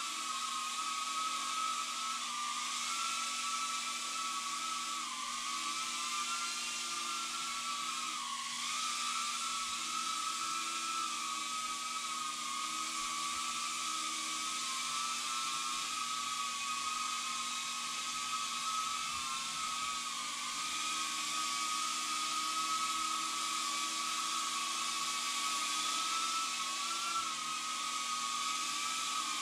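Tiny whoop micro quadcopter's motors and propellers whining steadily, the pitch dipping briefly every few seconds as it flies.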